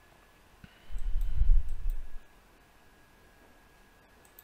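Faint computer mouse clicks during a selection, with a louder low muffled rumble on the microphone lasting about a second, starting about a second in.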